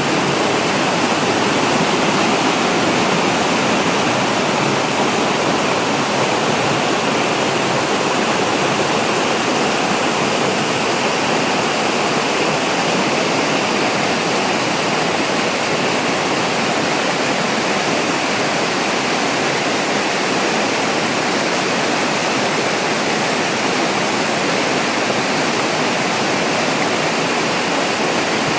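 Waterfall: water falling and rushing in a loud, steady roar with no breaks.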